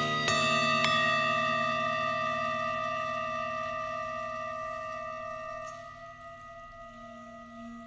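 Metal singing bowls struck with a beater, twice in the first second. Several steady tones then ring on and slowly die away, the lowest one pulsing gently.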